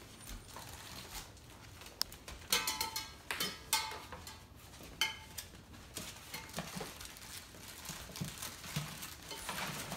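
Hanging metal cans on a puppy activity frame clanking and ringing as puppies knock into them: a cluster of sharp clanks between about two and four seconds in, and another about five seconds in.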